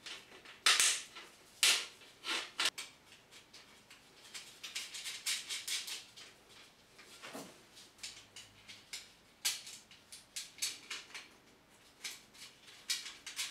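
Metal stand parts clanking as short sheet-metal cross braces are fitted between the legs of a table saw stand: a few sharp metal knocks in the first three seconds, then lighter scattered clicks and rattles.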